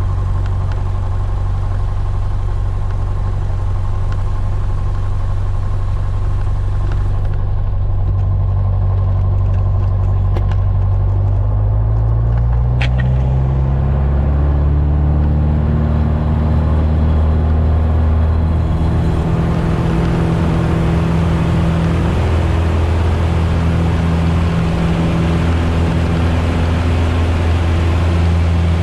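Piper Warrior's four-cylinder Lycoming engine and propeller heard from inside the cockpit, running steadily at low speed, then rising in pitch over several seconds to a higher steady speed, with more rushing noise once it settles.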